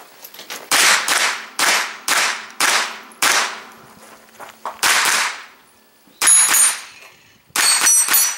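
Pistol-caliber carbine firing rapid shots, about six in the first five seconds spaced roughly half a second apart. Two more quick strings follow near the end, each with the high ringing of steel targets being hit.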